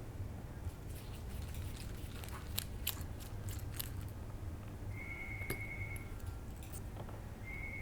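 Small clicks and ticks of little plastic and metal parts being handled as a small RC car shock absorber cap is unscrewed. Over the low hum of the room there is twice a steady thin high tone, about a second each, in the second half.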